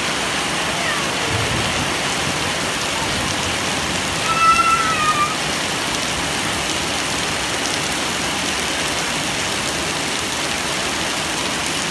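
Heavy rain falling steadily on gravel and puddled concrete, a continuous hiss. About four seconds in, a child gives one high-pitched call lasting about a second.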